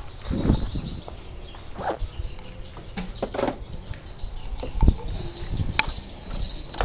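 Handling noise from fishing gear on a parked scooter: rustling, small knocks and clicks, with a low thump about five seconds in and a sharp click just after. A faint, steady high-pitched sound runs underneath.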